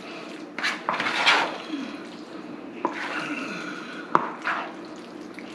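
Metal spoon folding chunky potato salad and dressing in a bowl: wet squelching, scraping strokes, with two sharp clicks of the spoon against the bowl, the louder one a little after four seconds in.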